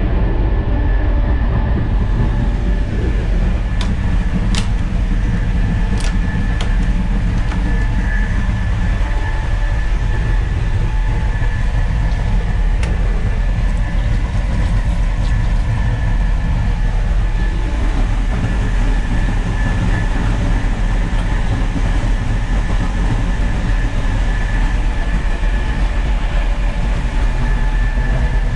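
Steady, loud rumble of a passenger train running at speed, heard from inside its onboard toilet cubicle, with a thin steady high whine over it. A few sharp clicks come in the first seven seconds.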